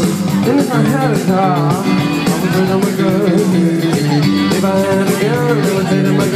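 Indie rock band playing live over a festival PA, heard from among the crowd: drums, bass and electric guitars going steadily, with a winding melody line over the top.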